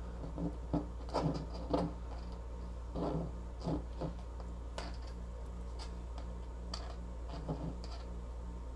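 Small clicks and rubbing from hands twisting wire ends together, irregular and scattered, over a steady low hum.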